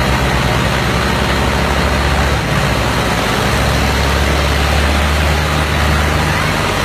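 Tractor diesel engine running with a steady low drone under heavy noise, its pitch shifting about two and a half seconds in.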